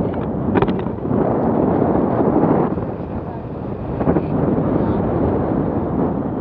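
Wind buffeting the microphone of a handheld camera in flight under a tandem paraglider: a loud, ragged rumble that eases for a moment around the middle.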